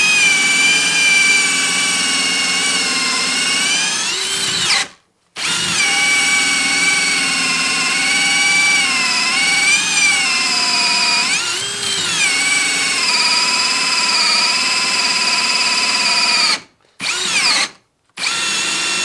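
Ryobi One+ 18V brushless hammer drill cutting into a wooden block with a hole saw: a steady motor whine whose pitch sags as the saw loads up. It stops briefly about five seconds in and twice near the end, then starts again each time.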